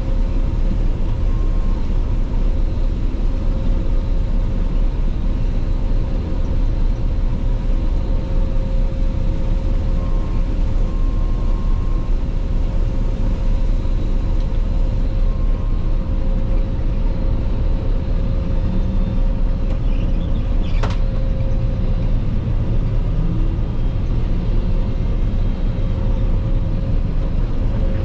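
Claas Lexion 480 combine harvester running steadily under harvest load, a constant loud drone with a steady high whine over it. A single sharp click sounds about two-thirds of the way through.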